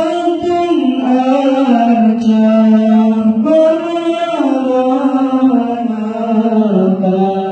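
Male voices chanting shalawat, a slow melody of long held notes that step up and down in pitch.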